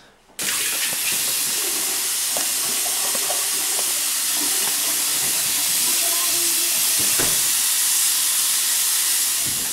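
Tap water running steadily into a bathroom sink while hands are rubbed and washed under the stream, an even hiss that starts suddenly just after the beginning.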